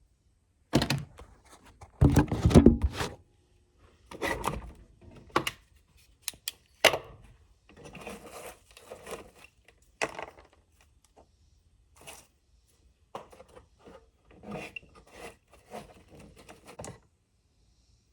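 Tools and small metal parts being handled and set down during hands-on work on a generator: irregular knocks, clatter and scraping in about a dozen separate bursts, the loudest in the first three seconds, with short pauses between.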